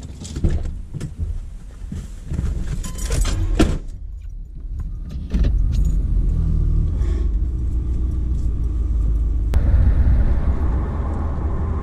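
Keys jangling and the clicks and clunks of a pickup truck's door being opened and shut as someone gets in. About five seconds in the engine starts and settles into a steady low running, then the truck pulls away.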